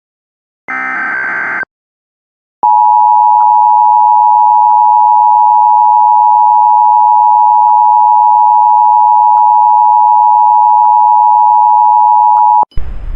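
Emergency Alert System header data burst, a harsh screeching chirr, ending about a second and a half in. After a short gap comes the EAS two-tone attention signal (853 and 960 Hz sounded together), loud and steady for about ten seconds. It cuts off near the end with a sharp click and a hiss as the voice message begins.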